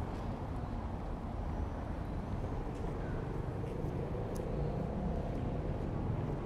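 Steady city street traffic: cars rumbling over a paving-stone road, with a few faint ticks on top.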